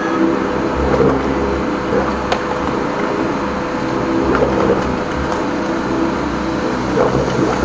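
High-pressure drain jetter running steadily, its engine-driven pump droning with rushing water as the jetting hose and turbo drill nozzle work through a clogged rainwater downpipe.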